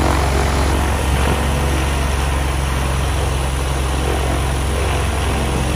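UL Power UL520is 5.3-litre six-cylinder aircraft engine running steadily on the ground, turning the propeller.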